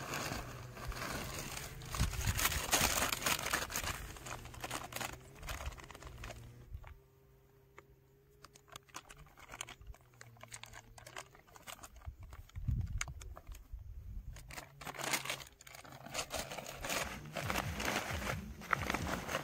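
Plastic packaging crinkling and rustling in irregular bursts as rice bran powder is poured from a packet onto a plastic rice sack and worked by hand, with a quieter stretch in the middle.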